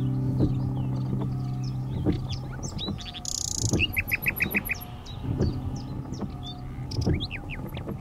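Nightingale singing, with high whistles and a fast run of repeated notes about four seconds in. Beneath it a low steady hum stops about three seconds in and returns after five, with occasional dull low thumps.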